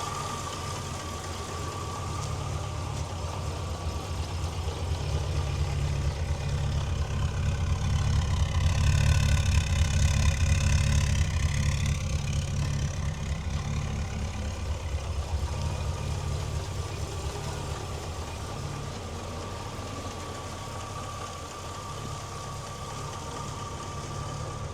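Rover P6 3500's 3.5-litre aluminium V8 idling steadily. It swells louder toward the middle and eases off again.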